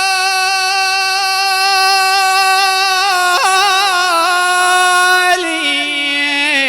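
A male eulogy reciter (radood) singing a Shia Husseini lament solo, holding one long high note. About three seconds in he breaks it into quick ornamental turns, and near the end he steps down to a lower note.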